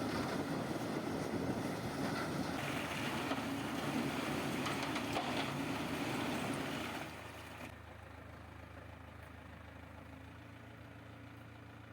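Engine of a piece of heavy construction machinery running, loud and rough for about seven seconds, then dropping to a quieter steady hum.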